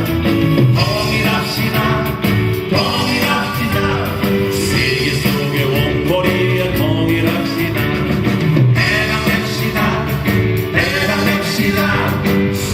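Live rock band playing a song, with singing over guitar, keyboard and drums.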